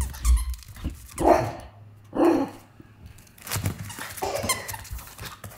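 A dog barking several times, short barks about a second apart.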